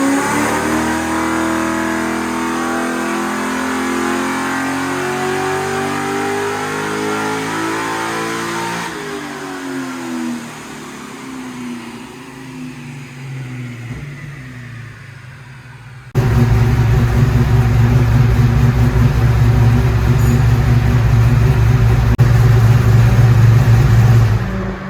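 LS1 V8 revving up steadily under load in a dyno pull for about nine seconds, then backing off and winding down. At about sixteen seconds a loud, steady low drone cuts in abruptly and runs until just before the end.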